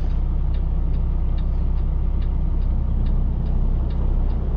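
A truck's turn signal ticking evenly, about two ticks a second, over the low, steady hum of the diesel engine idling, heard inside the cab.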